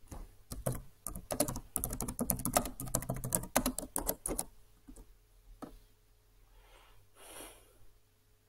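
Rapid typing on a computer keyboard, a quick run of key clicks lasting about four seconds, followed by a few single clicks and a soft rustle near the end.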